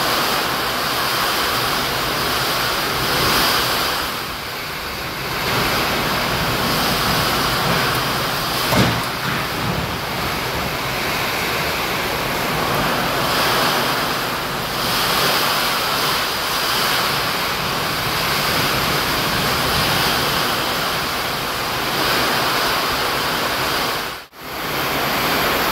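Torrential rain with gusting wind, a steady loud rush that swells and eases, with a brief dropout near the end.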